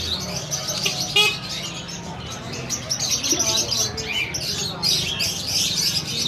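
Many caged small birds chirping and tweeting at once, a dense, unbroken chatter with a sharper trill about a second in, over a steady low hum.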